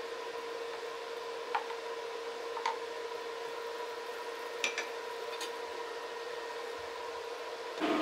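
A wooden spoon stirring yogurt in a ceramic bowl, with a few light clinks of spoon and ladle against the bowl and the pot, over a faint steady hum and hiss.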